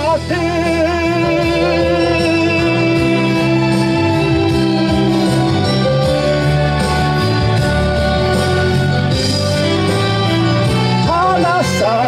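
Enka karaoke backing track with a singer: a long held sung note at the start, then an instrumental passage, and singing returning near the end.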